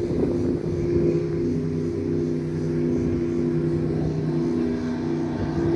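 Motorboat engine running steadily, a low drone whose pitch shifts slightly now and then.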